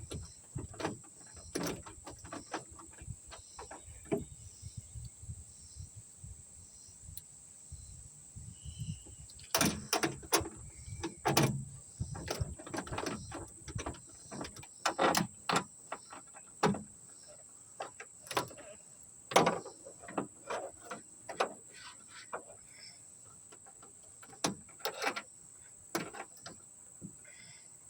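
Irregular clicks, clunks and metal rattles of hand tools and latch parts being handled while a Ford Crown Victoria trunk latch is fitted.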